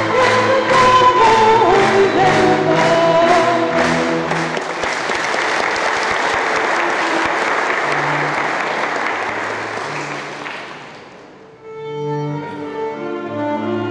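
A folk music ensemble singing and playing over a steady beat; the song ends about four seconds in. Audience applause follows and fades away. Near the end a new piece starts with bowed strings.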